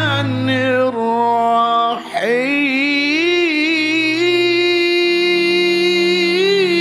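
Background music with a singing voice holding long, wavering notes over a steady low drone.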